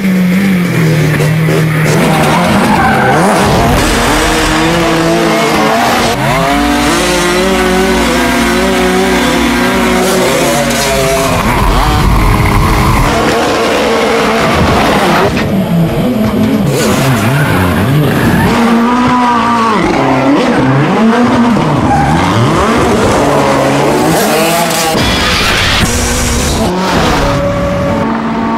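Ford Fiesta rally car's engine revving hard, its pitch rising and falling again and again, while its tyres squeal and skid through drifts and donuts.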